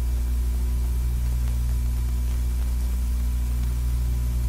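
Steady electrical hum with background hiss from an old film soundtrack. It holds at an even level with no clicks or knocks.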